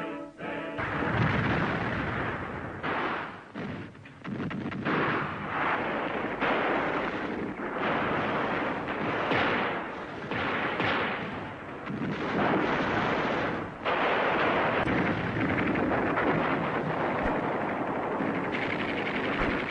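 Battle sounds: sustained gunfire mixed with heavy artillery blasts, a dense din that surges and dips.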